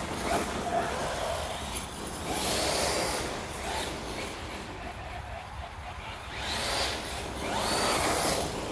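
A TLR Typhon 3S RC buggy's electric motor whining up and down in several bursts as it accelerates and slows, with tyre noise on gravel and leaves. A steady low rumble runs underneath.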